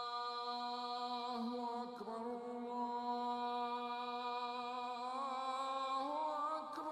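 A single voice chanting, holding one long steady note for several seconds, then breaking into wavering, sliding ornaments near the end.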